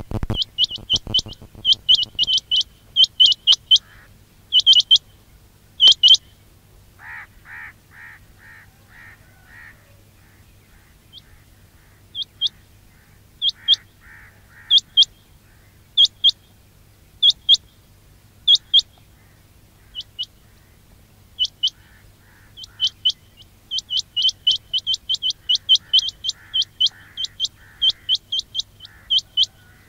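Recorded quail calls: sharp, high chirping notes, some in quick runs and some spaced out, with a softer, lower call of about five pulsed notes heard a few times. A faint steady low hum runs underneath.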